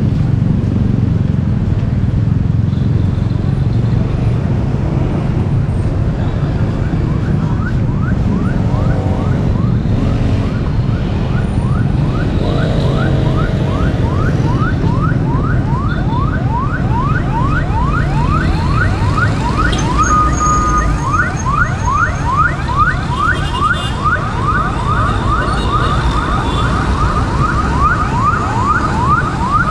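Siren yelping: short rising pitch sweeps repeated several times a second, coming in about eight seconds in and growing louder toward the end, over a steady low rumble of street traffic.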